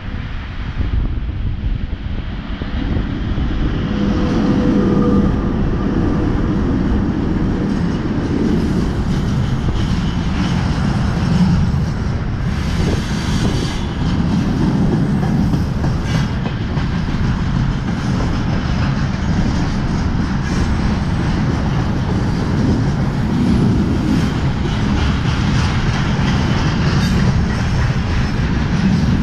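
A freight train hauled by a VL80S AC electric locomotive approaches and rolls past close by, growing louder over the first few seconds. A long line of tank wagons then rumbles steadily past on the rails.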